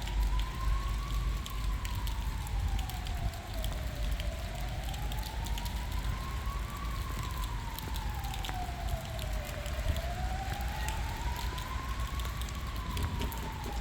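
Emergency vehicle siren wailing, a slow rise and fall of pitch repeating about every five and a half seconds, three times over. Steady rain runs underneath with scattered patter of drops.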